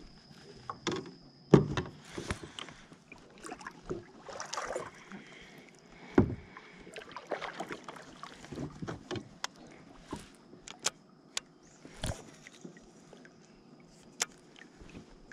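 Irregular knocks, bumps and rustling from fishing gear and a paddle being handled in a plastic kayak, with the loudest knocks about one and a half, six and twelve seconds in.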